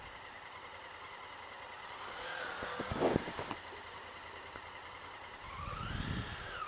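Honda Africa Twin CRF1000L's parallel-twin engine running in slow city traffic as the bike creeps forward. There is a brief loud noise about three seconds in, and near the end the engine pitch rises and falls as it pulls ahead.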